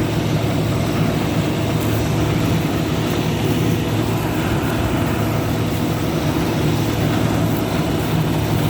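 Combine harvester's diesel engine and threshing machinery running steadily, a continuous loud drone with a low hum.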